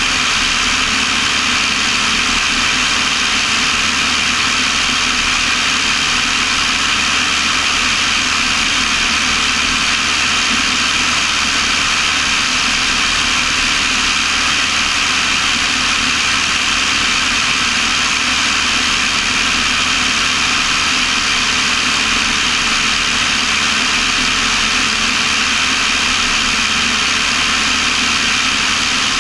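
Cessna 172 in cruise flight: the piston engine and propeller make a steady drone mixed with the rush of airflow, unchanging throughout.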